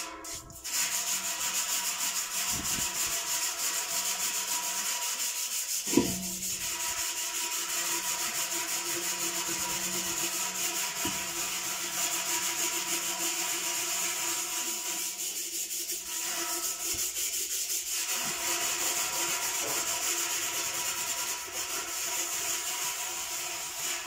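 Steel wool pad scrubbed hard and fast against a perforated washing-machine tub, a steady rubbing that is scouring off caked-on grime. A single knock about six seconds in.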